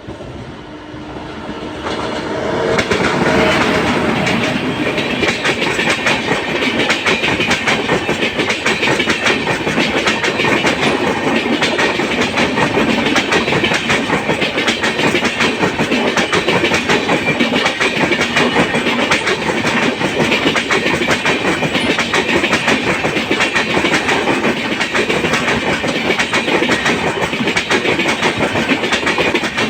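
Express train running close by at speed, its wheels clattering rhythmically over the rail joints. The sound builds over the first three seconds, then holds as a steady, dense clatter.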